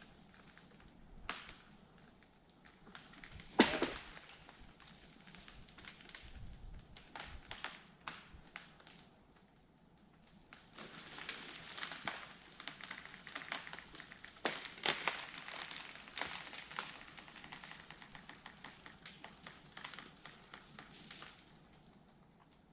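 Wood of a notched and back-cut tree cracking and splintering as it slowly gives way: one sharp crack a few seconds in, then a long run of dense crackling and snapping.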